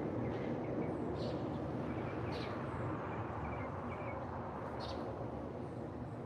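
Songbirds calling with short, high chirps a few times, over a steady low rumble.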